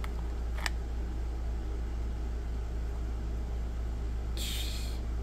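Steady low hum with background noise, with two light plastic clicks in the first second and a short hiss about four and a half seconds in, as two handheld-radio battery packs are handled.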